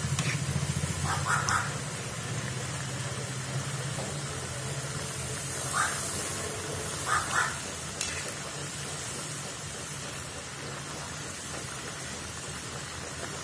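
Chunks of raw banana deep-frying in hot coconut oil in an iron wok, a steady sizzle, with a few brief sharper sounds near the middle.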